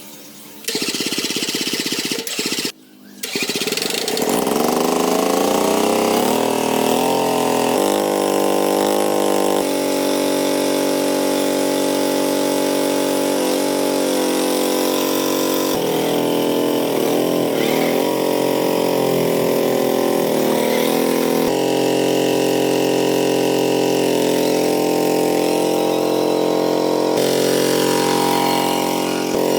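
Tractor engine, freshly repaired, being started after a brief cranking attempt and then running steadily, its speed rising and falling a little midway.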